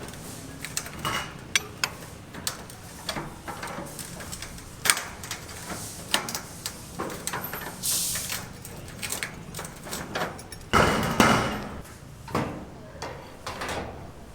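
Irregular knocks, taps and clanks of building work, with a louder clatter a little after the middle.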